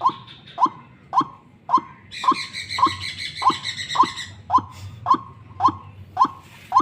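A white-breasted waterhen (ruak-ruak) used as a lure bird calls a short, harsh note over and over, a little under twice a second at a steady pace. A fainter high twittering runs over the calls for about two seconds in the middle.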